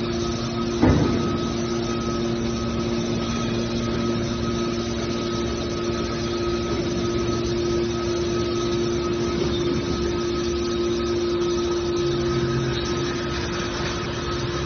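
Hydraulic scrap-metal baler's power unit running with a steady hum while its hydraulic cylinders fold the press-box lid closed, with one short knock about a second in.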